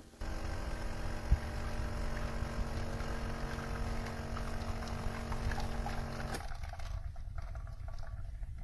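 De'Longhi La Specialista Arte Evo espresso machine running with a steady mechanical hum that cuts off about six seconds in, leaving a low rumble. There is a single sharp click about a second in.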